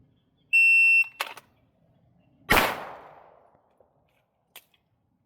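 Shot timer beeping once to start the drill, followed by a sharp clack, then a single loud pistol shot about two and a half seconds in that rings out and fades; a faint click follows near the end.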